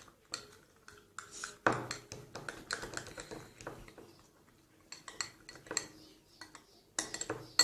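A spoon stirring a thick soap-and-salt slime mixture in a bowl, clinking and scraping against the sides in irregular strokes. The loudest clinks come near the end.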